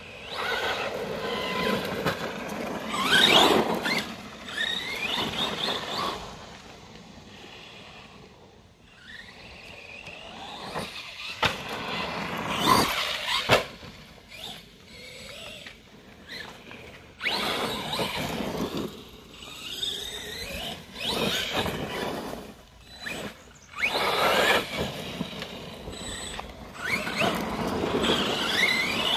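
Arrma Granite 4x4 BLX RC monster truck's brushless motor on 3S, whining in repeated throttle bursts, its pitch rising and falling as the truck speeds up and slows, with quieter gaps between runs. A few sharp knocks come about halfway through.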